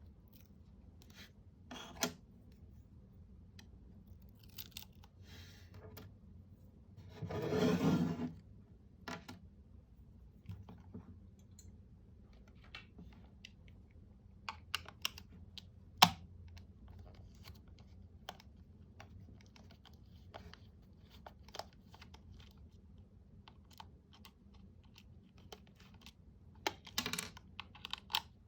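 Small plastic clicks, taps and scrapes of a computer mouse being handled and worked on, with a short rasping sound lasting about a second roughly eight seconds in and a sharp click around the middle.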